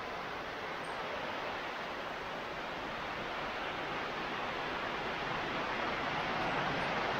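Heavy rain falling, a steady hiss that grows gradually louder.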